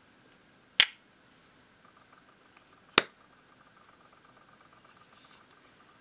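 Two sharp plastic snaps from a JBL Live Pro+ TWS earbud charging case being handled, with its magnetic lid and earbuds clicking into place. One comes about a second in and the other about three seconds in, with faint handling rustle between.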